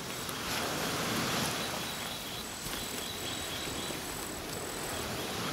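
Steady outdoor insect ambience, a hissing background, with a faint high-pitched insect call pulsing about twice a second from about two seconds in until about five seconds in.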